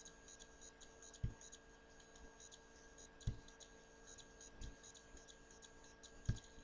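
Four soft knocks of a computer mouse being clicked, a second or two apart, over quiet room tone with a faint steady hum.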